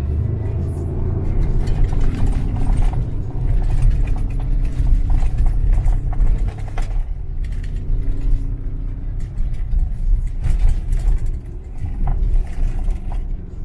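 Ford Ranger Raptor pickup driving over rough ground: a heavy, uneven low rumble with many short knocks and rattles.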